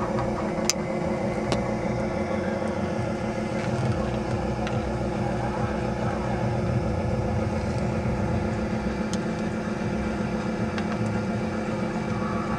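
Steady mechanical hum with a low rumble, broken by a few faint clicks.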